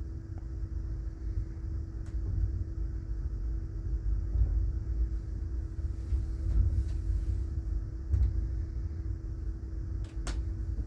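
Passenger train car rumbling as the train moves slowly, heard from inside the car, with a steady hum over the low rumble. There is a light click near the end.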